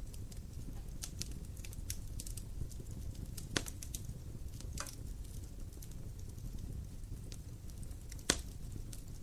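Wood fire crackling over a steady low rumble of the flames, with scattered sharp pops, two louder snaps at about three and a half and eight seconds in.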